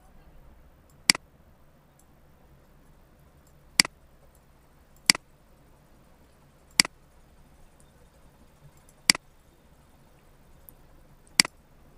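Computer mouse clicking: six single sharp clicks, irregularly spaced one to three seconds apart, over a faint steady room hum.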